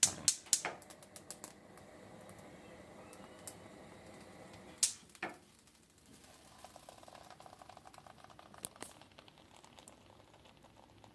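A quick run of sharp clicks, then a faint steady crackle with a few more clicks: a lighter being struck and small phone parts burning.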